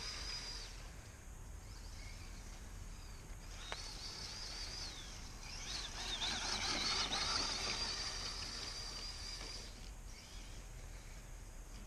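Electric RC crawler's stock 27-turn brushed motor and geartrain whining in three stretches, the high pitch wavering as the throttle changes, with a single click about four seconds in.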